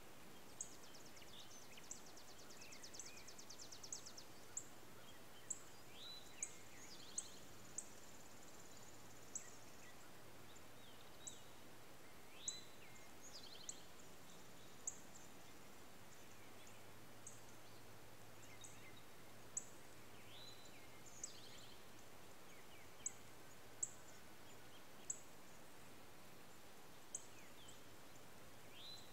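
Faint outdoor background of birds: short high chirps repeating every second or so, with a few rapid trills and lower chirps in between.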